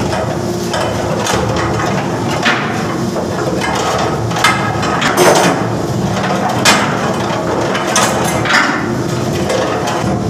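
Irregular knocks and clanks, about one every second or so, as a wooden pole is jabbed against the anchor chain and steelwork to work a twist out of the chain. Under them runs a steady ship's machinery hum.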